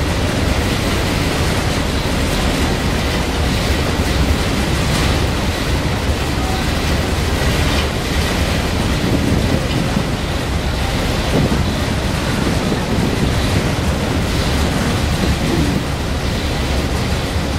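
Steady rushing of wind and water aboard a boat crossing the harbor in a storm, with a constant deep rumble underneath.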